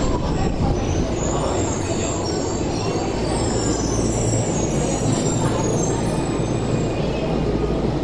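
Tokyo Metro subway trains moving through underground stations: a steady, dense rumble of running trains and wheels on rail.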